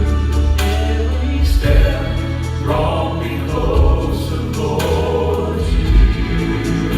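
Gospel vocal quartet singing in harmony over a steady bass line and beat.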